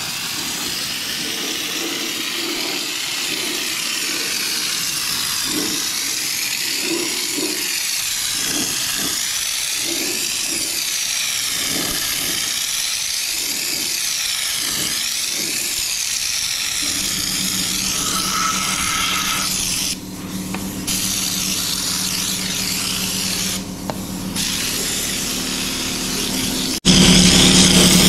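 Compressed-air Schutz gun spraying underbody sealant onto a chassis: a continuous loud hiss of air and spray that cuts out briefly twice in the last third. A steady low hum joins partway through, and the sound gets suddenly louder near the end.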